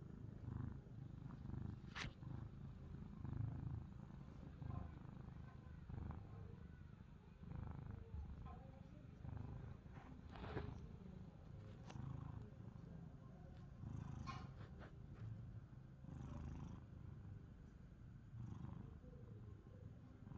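Domestic cat purring close to the microphone, a low purr that swells and eases about once a second, with a few faint clicks.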